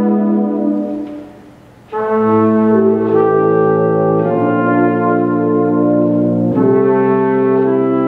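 Tuba and euphonium ensemble playing held chords. One chord fades away about a second in, and after a brief near-silent pause the full ensemble comes back in with deep tuba bass notes, moving through several sustained chord changes.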